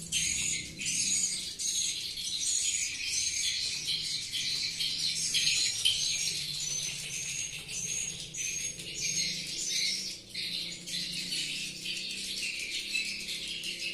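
Edible-nest swiftlets twittering: a dense, continuous chatter of short high chirps, many of them quick little sweeps up or down in pitch.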